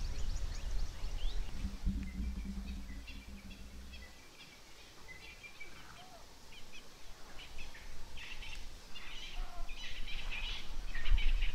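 Small birds chirping and calling in the bush, short scattered calls throughout. Low rumbling noise underneath fades out about four seconds in and comes back, with a short low thump near the end.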